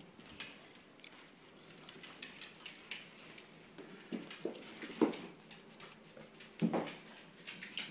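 A corgi puppy's claws pattering and skittering on a hardwood floor as it chases a rope toy, in irregular light taps, with two louder knocks in the second half.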